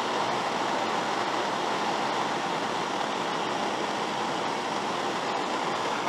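Handheld propane torch burning with a steady, even hiss of flame.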